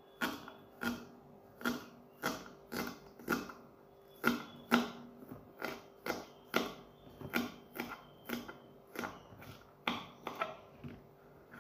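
Kitchen knife chopping spring onions on a wooden chopping board, the blade knocking on the board about twice a second. The chopping stops near the end.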